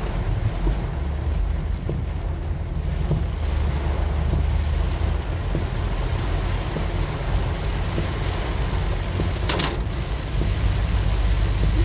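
Inside a Ford Freestar minivan driving through heavy rain: a steady low rumble of road and engine noise, with rain beating on the windshield and body. A single sharp click comes near the end.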